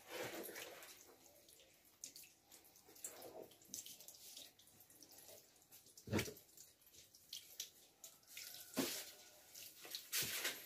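Rubber-bladed sink squeegee wiping water across a stainless steel drainboard: faint wet swishes and drips, with a couple of sharp knocks about six and nine seconds in.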